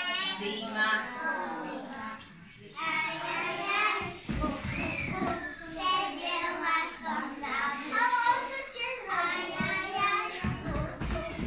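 A group of small children singing a song together, with a short break about two seconds in.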